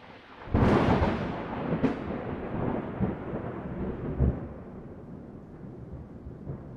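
A thunderclap: a sharp crack about half a second in and another near two seconds, then a long rolling rumble that slowly fades.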